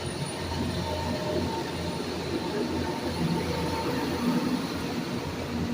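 Tren Maya passenger train moving off from the station: a steady rumble with a faint squeal from the wheels.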